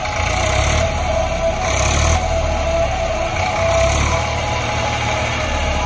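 Eicher 548 tractor's diesel engine running steadily under load as its hydraulics tip the loaded trailer bed, with background music playing over it.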